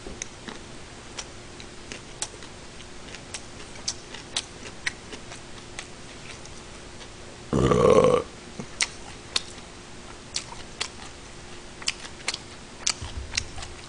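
A man chewing a mouthful of gimbap, with scattered sharp wet mouth clicks. A little past halfway there is one loud burp lasting under a second.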